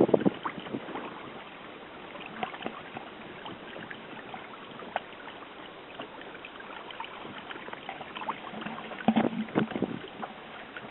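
Water lapping and trickling along the hull of a sailing proa moving slowly in light wind, with scattered small splashes and ticks. A louder cluster of splashes comes about nine seconds in.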